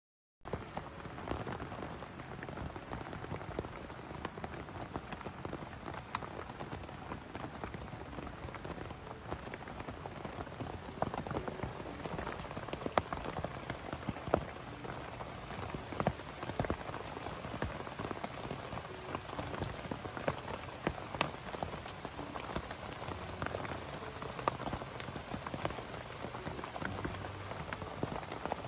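Steady rain falling, with many individual drops striking sharply on the canvas of a pup tent, starting about half a second in.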